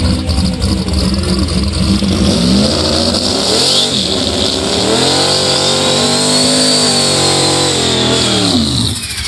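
Fox-body Ford Mustang drag car's V8 revved up and held high through a burnout, rear tires spinning and smoking. A thin high whine rises and falls with the revs. The revs drop off just before the end.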